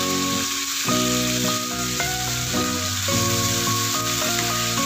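Mushrooms and soy sauce sizzling in a frying pan as a spatula stirs them through, with background music of held, changing notes playing over it.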